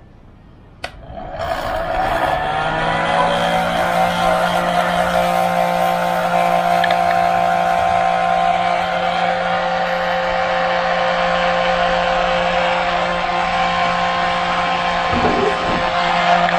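Heat gun switched on with a click about a second in, its fan motor spinning up and settling into a steady whine with rushing air as it heats the butyl rubber sealant in the headlight housing.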